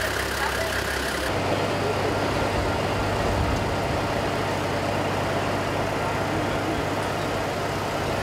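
A heavy vehicle's engine running steadily at idle, a low even hum. The hum changes abruptly about a second in.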